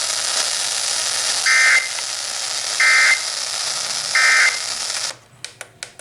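Emergency Alert System end-of-message signal received over FM radio: three short bursts of warbling two-tone digital data, about a second apart, over steady radio hiss. The hiss cuts off about five seconds in, leaving a few clicks.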